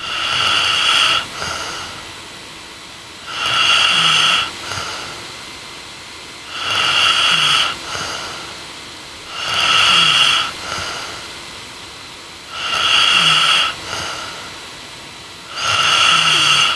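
A young woman snoring in her sleep: six regular snores about three seconds apart, each lasting about a second and followed by a brief, weaker after-sound.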